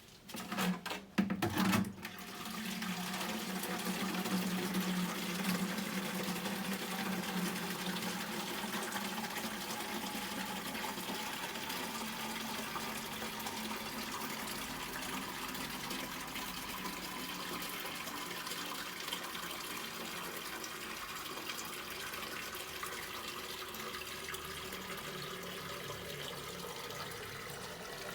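Water running steadily, after a few knocks in the first two seconds.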